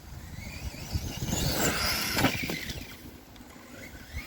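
RC monster truck's electric motor whining up in pitch as it accelerates, loudest about two seconds in, then easing off, with a low rumble of tyres on grass underneath.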